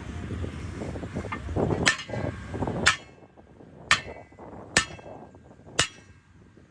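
Hammer blows on metal, about one a second, each with a short ringing after it. Five strikes in all; during the first two a low rumble runs underneath and stops about three seconds in, so the last three stand out clearer.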